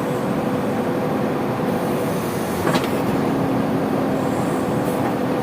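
Diesel engines of heavy machinery running steadily, with a single sharp knock about halfway through.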